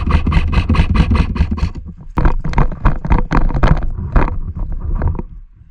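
Airsoft electric rifle firing a rapid full-auto burst at about eight shots a second for nearly two seconds, then a run of slower, uneven shots, over wind rumbling on the microphone.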